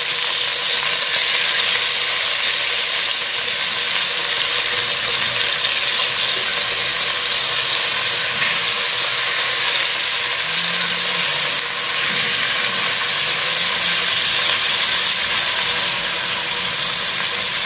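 Chicken pieces frying in hot oil in a stainless steel pot, a steady sizzle as they are turned over with a spoon.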